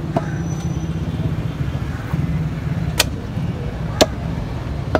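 Butcher's cleaver chopping beef on a wooden chopping block: four sharp chops, one just after the start and three near the end about a second apart. Behind them runs a steady low rumble of street traffic.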